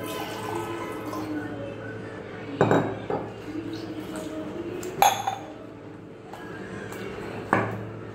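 Water poured from a glass jug into a steel tumbler, then from the tumbler into a glass bowl of rice-and-dal batter, with three sharp clinks of metal and glass along the way.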